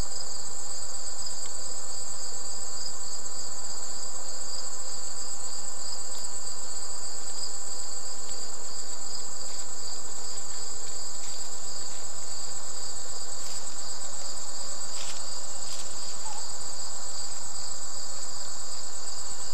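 Steady high-pitched chorus of crickets or similar singing insects, two continuous fast trills at different pitches sounding together, with a few faint clicks about three-quarters of the way through.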